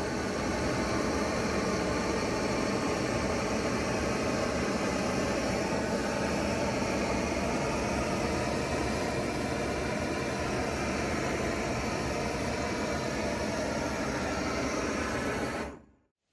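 A steady mechanical drone: a loud, even hiss with several steady whining tones in it, cutting off abruptly near the end.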